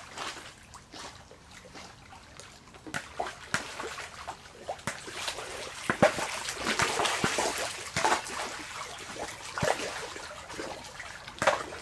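A Labrador swimming hard in a swimming pool, its paws churning and splashing the water in irregular splashes that grow louder and busier about halfway through as it swims close by with the ball.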